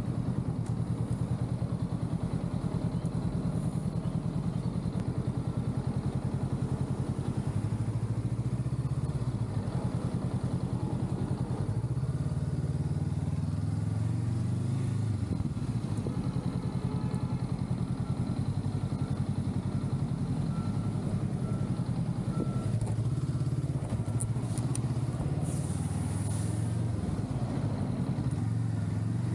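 Honda Rebel 500's parallel-twin engine running under way, heard from the rider's seat, its pitch rising and falling as the bike accelerates and eases off in city traffic.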